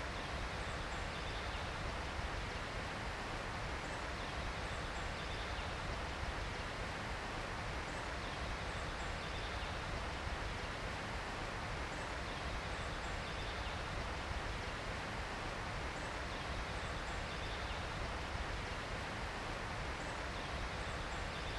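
Steady outdoor ambient noise, an even rushing hiss, with faint short high chirps recurring about every four seconds, as in a looped nature ambience bed.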